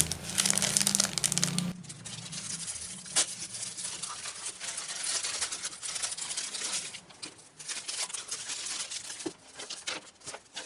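A package being unwrapped by hand: irregular crinkling, rustling and tearing of the wrapping with small clicks, loudest in the first couple of seconds and softer after.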